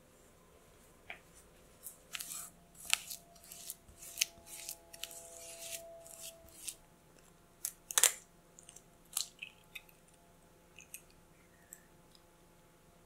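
Silicone spatula mixing soft butter dough and scraping against a glass bowl: a run of irregular short scrapes and taps, the loudest about eight seconds in. Near the end there are a few faint clicks of an egg shell being cracked.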